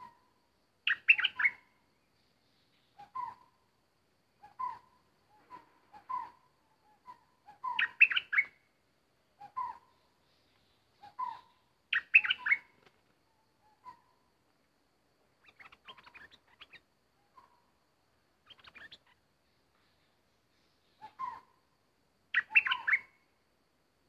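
Bulbul calling: short chirped phrases repeated every one to two seconds, a few of them louder and higher-pitched bursts of several quick notes.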